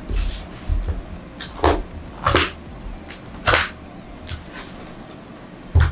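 Cardboard packaging box being worked open by hand: irregular short scrapes and rustles of cardboard sliding on cardboard, with a knock near the end.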